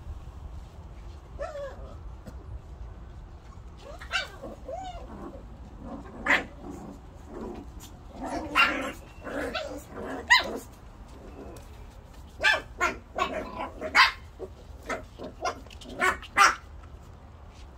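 A litter of 45-day-old puppies barking and yipping in short, high-pitched calls, some wavering in pitch. The calls come in bunches in the middle and near the end.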